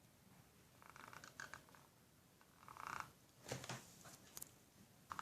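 Faint, brief scratching strokes of a drawing tool on paper, in a few short bursts with small taps in between.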